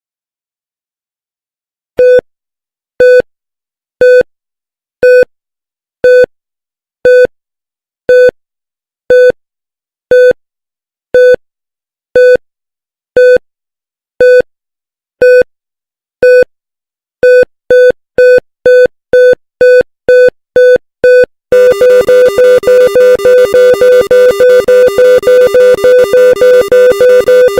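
Synthesized heart-rate monitor beeps. A single-pitch beep comes about once a second, a normal heart rate, and speeds up to about two a second about two-thirds of the way through, an increased rate. Near the end it turns into rapid, crowded beeping with extra alarm tones mixed in, the cardiac-arrest alarm.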